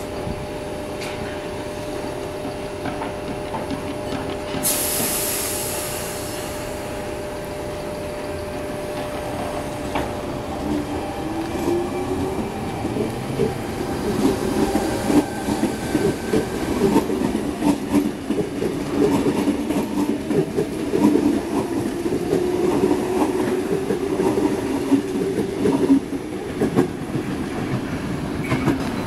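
A Sydney Trains Tangara double-deck electric train departing. It hums steadily while standing, gives a short burst of air hiss about five seconds in, then pulls away with a rising motor whine and louder wheel-on-rail clatter as its cars run past.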